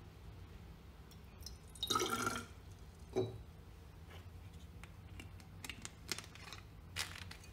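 Magnetic stirrer humming low and steady under a beaker of solution, with a short rustling, splashy burst about two seconds in, a sharp click a second later and a few faint clicks near the end.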